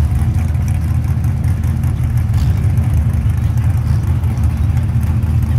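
A lowered compact pickup's engine idling loudly with a choppy, uneven low rumble as the truck creeps forward toward the starting line.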